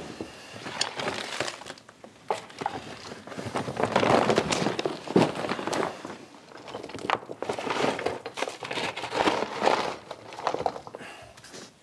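A shovel scraping across old wooden planks and scooping up broken rubble and dust, the chunks clattering as they are tipped into a woven bulk bag whose fabric rustles and crinkles as it is handled. Irregular scrapes and knocks, busiest about four and nine seconds in.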